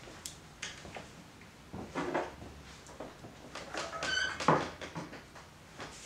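Dry willow rods rustling and clicking against a tabletop as they are handled, with a short squeak just after four seconds and a sharp knock right after it.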